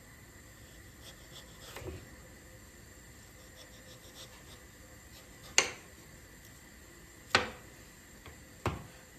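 Household objects being handled: soft taps and rubbing, then three sharp knocks, each about a second and a half apart.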